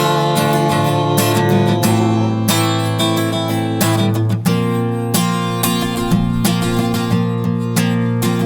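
Instrumental passage of a Portuguese-language worship song: an acoustic guitar strumming chords in a steady rhythm over held low notes.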